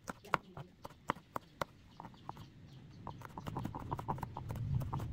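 A chef's knife mincing garlic on a plastic cutting board, the blade knocking on the board in quick, irregular chops. About three seconds in, a low hum rises underneath.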